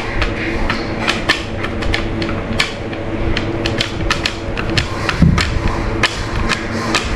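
A puppy gnawing on a hard horn chew: irregular sharp clicks and knocks of teeth on horn, several a second.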